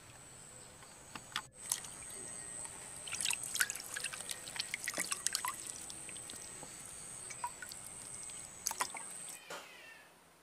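Water splashing and dripping as raw chicken pieces are rubbed and lifted by hand in a pot of rinse water, with a cluster of small splashes a few seconds in.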